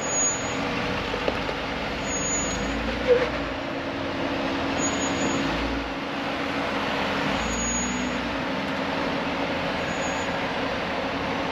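Jeep Wrangler Rubicon engine running at low speed under load while it crawls up a rock ledge, its note shifting up and down as the throttle is worked. A short knock sounds about three seconds in.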